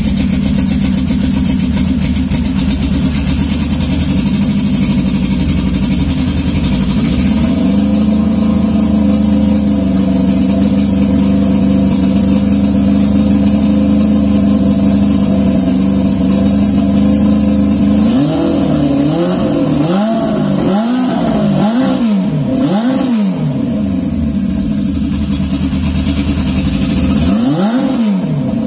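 Turbocharged Honda CB750 SOHC inline-four drag bike engine running at a steady idle, then revved in a quick series of four or five throttle blips about two-thirds of the way through and once more near the end.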